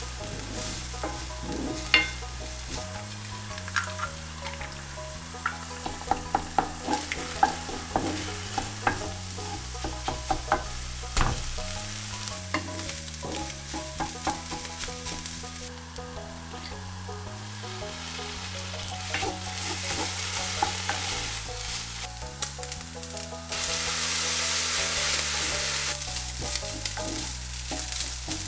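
Green onions and then egg fried rice sizzling in oil in a nonstick frying pan, stirred with a wooden spatula that clicks and scrapes against the pan again and again, most busily in the first half. The sizzle grows louder near the end.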